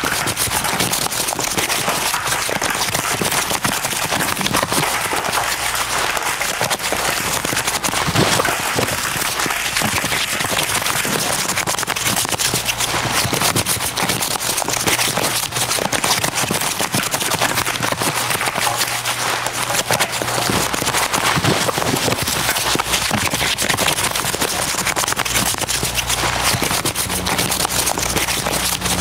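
Recyclable packaging being crumpled and crinkled by hand, a dense continuous crackle.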